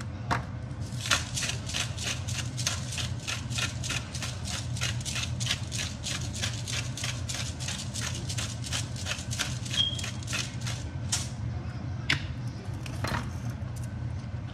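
Spice shaker shaken rapidly over a pan of ground meat, the seasoning rattling about four times a second for roughly ten seconds, then a couple of single clicks. A steady low hum runs underneath.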